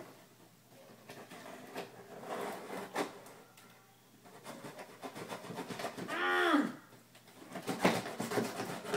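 A knife cutting through packing tape and cardboard on a shipping box, with scraping, rustling and small clicks as the box is worked open. About six seconds in, a short call from a voice in the background rises and falls in pitch.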